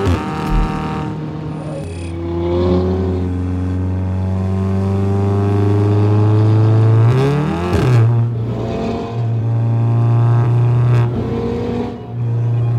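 Tuned VW Golf R's turbocharged four-cylinder engine pulling hard under acceleration. Its note climbs steadily for several seconds, with brief breaks in the note about seven and twelve seconds in.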